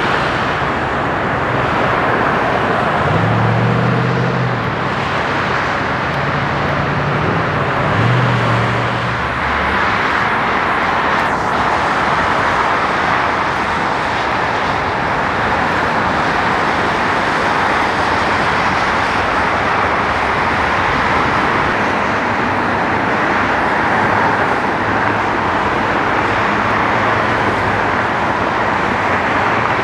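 Steady wash of dense freeway traffic, mostly tyre noise on wet pavement. A heavier vehicle's low engine hum stands out from about three to nine seconds in.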